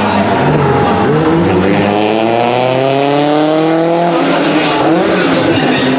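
Lancia Rally 037's supercharged four-cylinder engine accelerating hard, its pitch rising for about three seconds, then dropping as the driver lifts or changes gear before it picks up again near the end.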